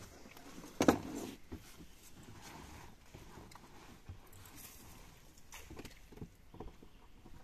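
Knocks and bumps on a small fibreglass boat as gear is handled aboard, with one sharp loud knock about a second in and a few softer thumps near the end.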